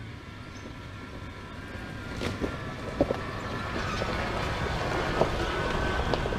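Lexus GX470 SUV driving on a rough forest road: a steady low rumble that slowly grows louder, with a few sharp knocks and clunks from the road surface.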